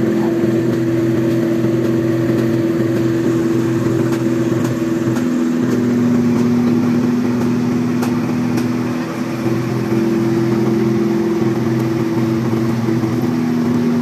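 Fire truck's engine running steadily, a continuous hum that shifts slightly in pitch a few times.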